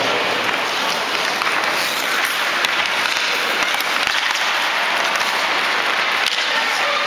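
Steady hiss of many ice skates scraping and gliding on a hockey rink, with a few faint clacks of sticks and pucks.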